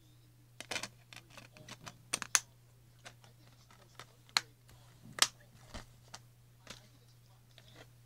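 Plastic DVD and Blu-ray cases clicking and clattering as they are handled, with several sharp clacks and a few softer taps, over a steady low hum.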